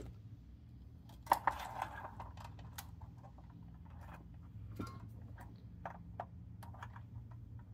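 Faint handling noise from hands working a circuit board, solder wire and a soldering iron during soldering: scattered light clicks and taps, with a slightly louder rustle and clicks about a second and a half in, over a steady low hum.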